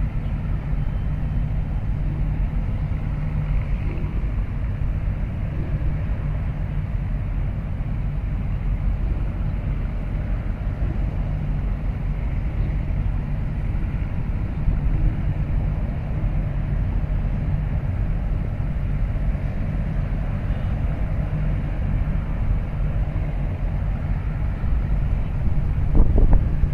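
Steady low rumble of a container port, with a brief louder swell near the end.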